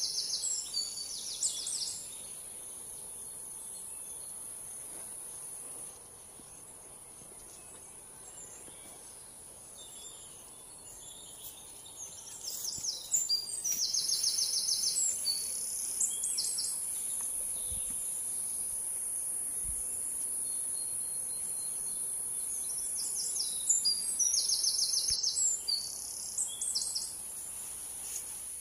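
Insects droning steadily at a high pitch, with bursts of rapid chirping calls a few times, about half-way through and again near the end.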